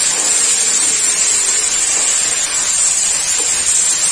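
Chopped tomato and fried onions sizzling in hot oil in a kadai as they are stirred, a steady hiss.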